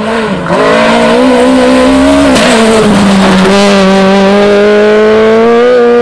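Peugeot 208 rally car's engine pulling hard under acceleration. The pitch climbs, drops with an upshift about two seconds in, then climbs slowly again.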